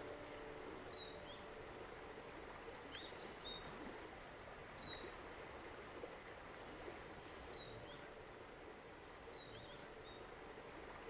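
Faint outdoor ambience with small birds singing short, high chirping phrases every second or so over a steady background hiss. The last plucked notes of a kantele die away in the first second.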